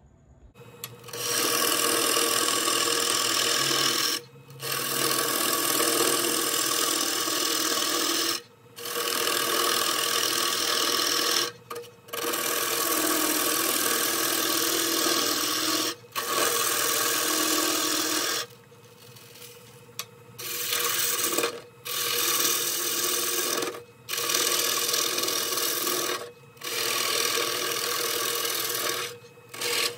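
Bowl gouge cutting the inside of a spinning ash bowl on a wood lathe, in repeated passes of a few seconds each. The passes are broken by short gaps where the tool comes off the wood, and there is a longer pause about two-thirds of the way through. A steady lathe hum runs underneath.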